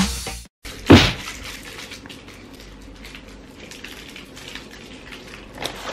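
Music cuts off at the start; about a second in comes a single loud thump, then quiet small-room tone with faint small knocks.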